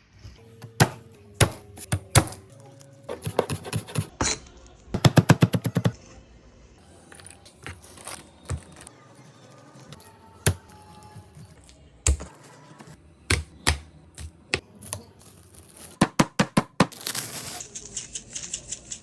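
Kitchen work sounds: scattered sharp knocks and clicks, with two quick runs of rapid taps, then a hissing noise near the end.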